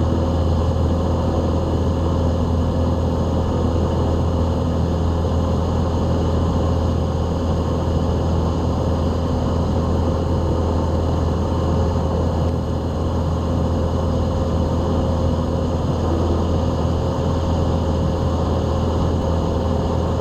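Piper Archer's four-cylinder piston engine and propeller droning steadily in cruise flight, heard from inside the cockpit, with an even low drone and a steady hum on top.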